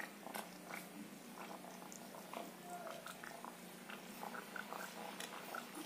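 Faint soft clicks and wet squelches of a wooden spatula working thick gravy in a pan, over a low steady hum.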